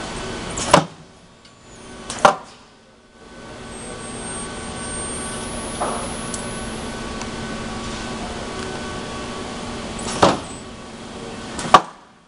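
Ultrasonic plastic welding machine running with a steady hum, broken by four loud sharp clunks from its moving parts, two near the start and two near the end.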